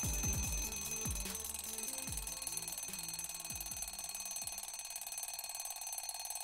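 Alarm-clock ringing sound effect, with several quick falling swoops in the first half.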